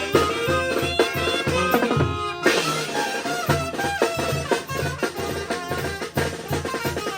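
Mexican banda (brass wind band) playing a lively dance tune: melody lines over a steady, pulsing bass beat with drums.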